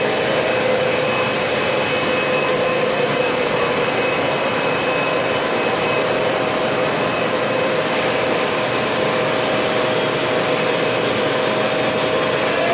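RS32 industrial floor-cleaning machine running steadily, a loud even rush of fan and motor noise with a steady high whine over it.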